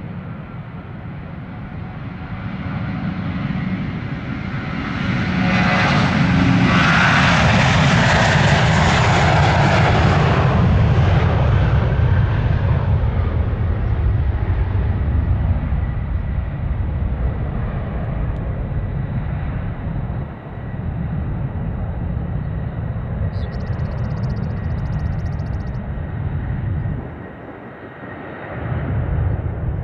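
A jet airliner passing: its engine noise builds over the first few seconds, is loudest from about six to twelve seconds in, and then slowly fades to a lower rumble.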